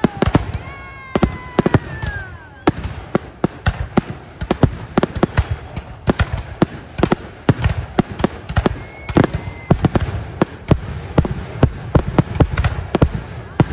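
Fireworks display: a rapid, irregular barrage of aerial shell bangs and crackling, several reports a second, with falling whistling tones near the start.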